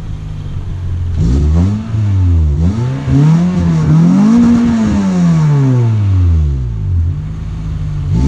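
Toyota Celica GT-S's 2ZZ-GE four-cylinder engine revved through a freshly fitted used AP XLerator cat-back exhaust: a moment of idle, then several blips rising and falling, the longest and highest in the middle, and a short idle before a new rise at the end. The revving is blowing rusty dust and debris out of the second-hand exhaust.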